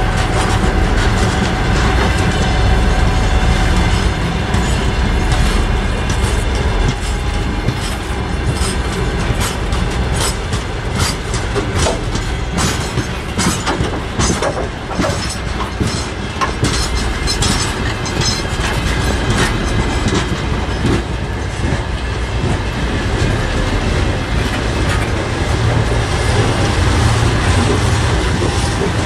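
Long freight train of open gondola wagons rolling past close by: a steady rumble with the wheels clattering over rail joints.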